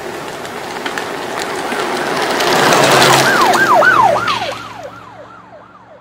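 Soundtrack sound effect for an outro. A noisy swell builds to about three seconds in, then gives way to a repeated siren-like falling wail, nearly three a second, that fades out like an echo.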